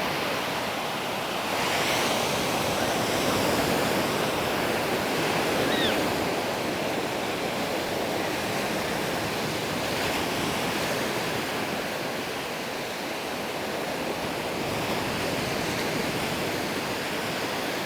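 Small sea waves breaking and washing up a sandy beach in a steady rush that swells and eases gently, with some wind on the microphone.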